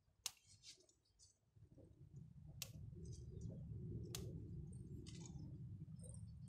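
Faint handling sounds as damaged parts are taken off a desert rose: a few sharp, separate clicks, over a low steady rumble that sets in about two seconds in.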